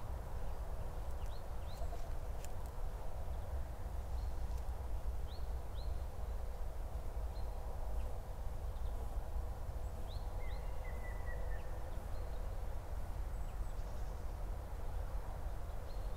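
Outdoor ambience: a steady low rumble with scattered faint, short bird chirps, and one brief bird trill about ten seconds in.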